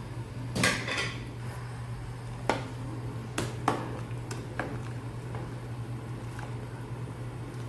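A ladle stirring a pot of boiling soup, knocking and scraping against the pan in a handful of sharp clinks over the first five seconds, over a steady low hum.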